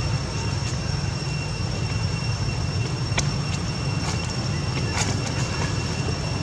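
Steady outdoor background noise: a continuous low rumble with a thin, steady high-pitched whine over it, and a couple of faint clicks about three and five seconds in.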